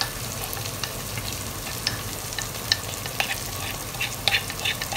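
Onion and tomato mixture sizzling steadily as it fries in a steel pot, with light scraping and tapping as powdered cashews are scraped out of a wooden container with a plastic spatula into the pot, mostly in the second half.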